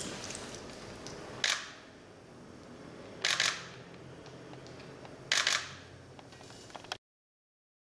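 Camera shutters firing at a posed face-off: one shot about a second and a half in, then two quick bursts of several shots a couple of seconds apart, over quiet room tone. The sound cuts off abruptly near the end.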